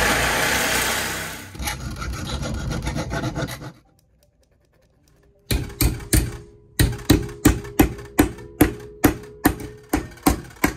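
DeWalt reciprocating saw cutting through steel angle iron clamped in a bench vise for about four seconds, loudest at first. After a short pause, a hammer strikes the steel strip in the vise about three times a second, each blow ringing, bending it into shape.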